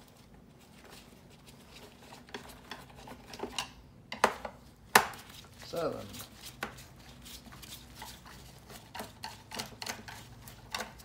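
Screwdriver taking T10 Torx screws out of a Shark Ion RV700 robot vacuum's plastic underside: scattered clicks and taps of the driver and the plastic housing being handled, with two louder knocks about four and five seconds in.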